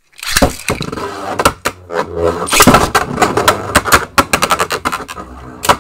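Plastic Beyblade launchers and tops being handled and readied: loud, close rattling and a fast run of sharp clicks, with one strong click near the end.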